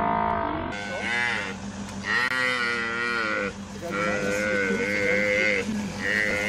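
A large animal calling over and over: about five long, drawn-out calls, each a second or more with short pauses between, whose pitch rises and falls.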